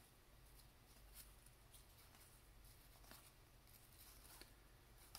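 Near silence, with a few faint, scattered soft ticks of 1990–91 Pro Set hockey cards being slid off the stack and over one another in the hands.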